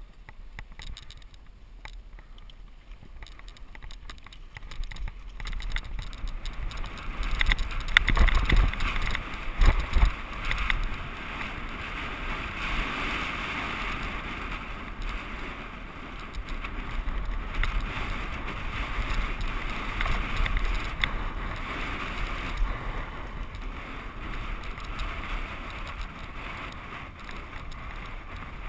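Mountain bike riding on a packed-dirt trail: tyre and frame noise with wind on the bike-mounted camera's microphone. It is quiet at first and builds as the bike gets going, with two hard jolts about a third of the way in, then runs on as a steady rushing rattle.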